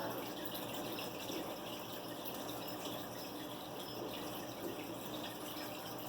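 A steady rushing noise, like water running from a tap.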